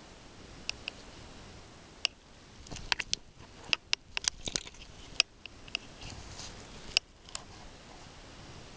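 Irregular sharp clicks and crunches of stones and gravel underfoot, most of them bunched around the middle.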